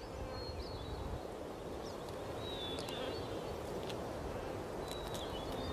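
Steady outdoor background hiss with a few faint, short high chirps and light clicks scattered through it.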